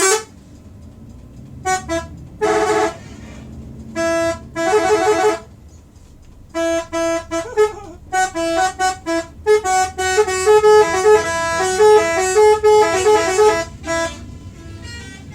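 A bus's telolet horn, a multi-tone musical horn, sounding several separate blasts and then, from about six seconds in, a quick run of notes stepping up and down in pitch like a tune. It stops about a second before the end.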